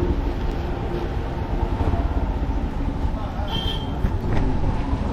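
Street traffic with a motor vehicle engine running close by. A short high beep sounds about three and a half seconds in.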